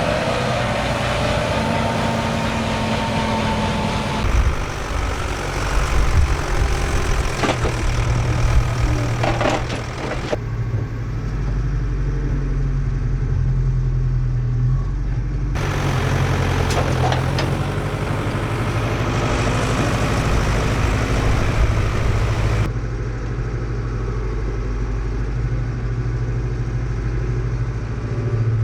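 Heavy farm machinery diesel engines running steadily, in several shots cut together so that the engine sound changes abruptly a few times. A few sharp knocks stand out about a third of the way in and again past the middle.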